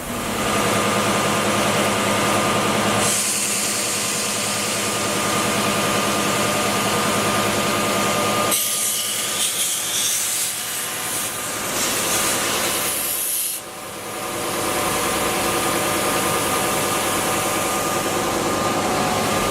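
Timesaver 37-inch single-head wide belt sander running with a 76-grit belt, grinding the plasma-cut dross off 16-gauge mild steel parts as they feed through. A steady machine hum under a hissing grind that changes as parts pass under the belt, dipping briefly about 14 seconds in.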